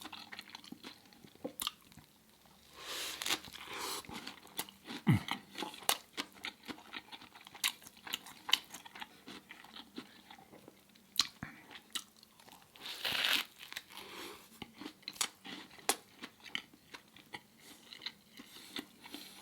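Close-miked eating: a person chewing and crunching mouthfuls of food, with many irregular wet mouth clicks and a few longer crunching stretches.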